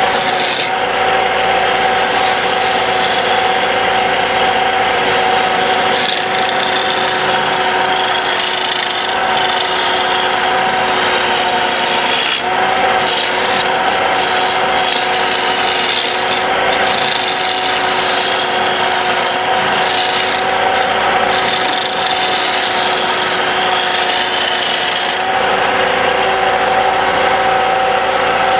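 Wood lathe running steadily as a wooden pestle blank is turned, with a continuous scraping of the wood over the even hum of the machine.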